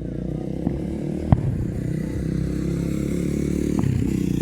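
A vehicle engine running steadily close by, a little louder toward the end. A few short sharp pops sound over it, the loudest about a second and a half in.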